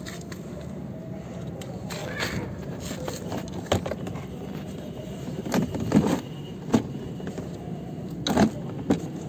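Irregular clicks and knocks of plastic kid's-car parts being handled, over a steady low hum. The loudest knocks come in the second half.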